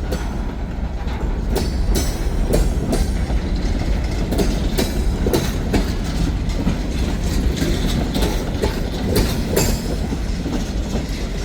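Freight train's tank cars rolling past close by: a steady low rumble, broken by repeated sharp clacks of the wheels going over rail joints.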